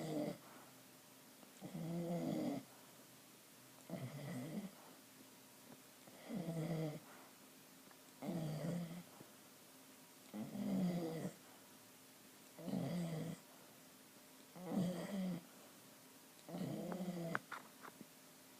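A sleeping dog snoring steadily: about nine pitched snores, each under a second long, one every two seconds or so, with a few faint clicks near the end.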